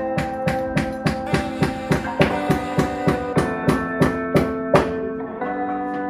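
Background music: sustained chords over a steady, quick drum beat of about three to four hits a second, the beat dropping out about five seconds in while the chords carry on.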